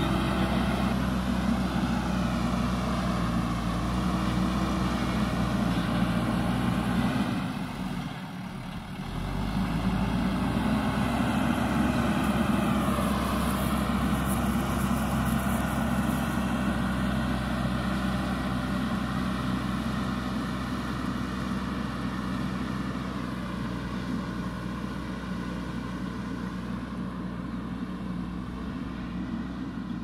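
JCB 3DX backhoe loader's diesel engine running under load as it pushes soil with its front bucket, the revs rising and falling a few times. It dips briefly about eight seconds in and grows fainter toward the end as the machine moves away.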